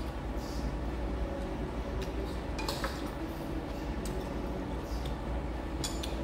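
Metal chopsticks and spoons clinking lightly against bowls and dishes a few times at a meal table, over a steady low background hum.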